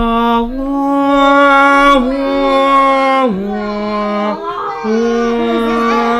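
A voice singing long held 'aah' notes, each lasting a second or more, stepping up and down between a few pitches.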